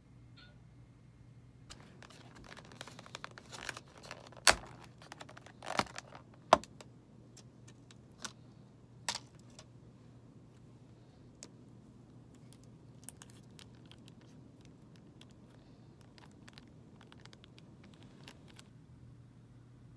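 Sharp plastic snaps and crackles as a clear plastic lid is pried off a takeout food container, the loudest few in the first half, followed by lighter rustling and clicking of wrappers, chopsticks and a soy sauce packet being torn open. A low steady hum runs underneath.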